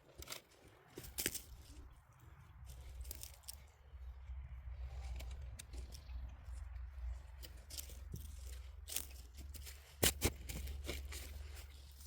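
Scattered clicks, rustles and knocks of hands at work, with two sharp knocks close together about ten seconds in, over a steady low rumble.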